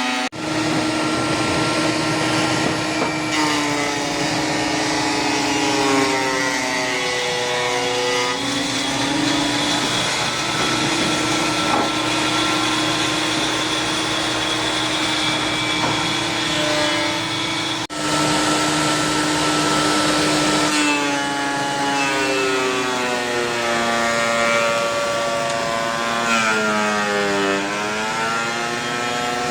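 Makita 2012NB 12-inch thickness planer running, its motor whine sagging in pitch and recovering several times as boards feed through the cutterhead and come out. The sound breaks off for an instant twice, just after the start and about midway.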